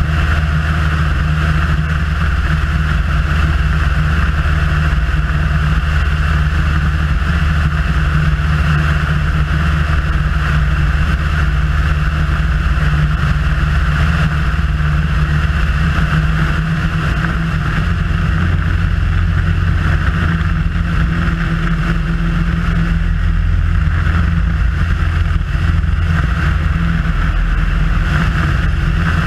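Piper Super Cub's piston engine and propeller droning steadily, heard from the tail with air rushing past; the low drone shifts slightly in pitch about halfway through.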